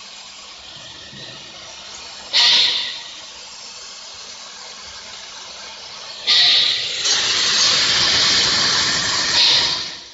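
Compressed air hissing at a plasma cutting machine: a short burst about two seconds in, then a louder steady hiss that starts abruptly about six seconds in and stops near the end, over a faint steady hiss.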